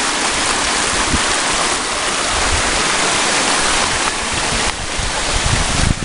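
Steady rushing of water from a small waterfall on a rocky mountain stream, heard close by.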